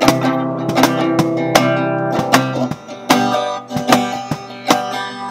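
Acoustic guitar strummed in chords by a beginner, with hand slaps on an Ahonistan cajon keeping an uneven beat.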